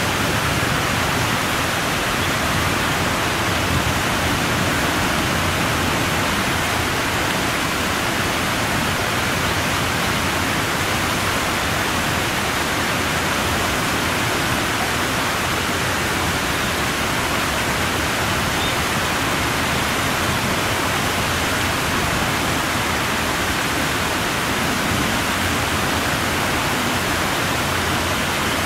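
Steady, even rushing noise at a constant level, with no distinct calls, splashes or other events standing out.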